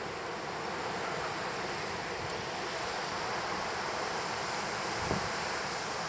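Strong spring-storm wind blowing as a steady rushing noise, with wind buffeting the microphone in low bumps, one stronger gust about five seconds in.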